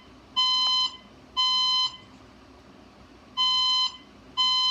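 Fire alarm sounding the temporal-three evacuation tone: half-second beeps a second apart in groups of three, each group followed by a longer gap. Two beeps close one group, then after a pause of about a second and a half the next group begins with two more.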